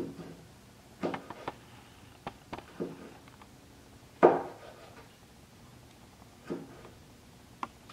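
Kitchen knife slicing a tomato on a cutting board: a string of irregular knocks as the blade comes down on the board, the loudest about four seconds in.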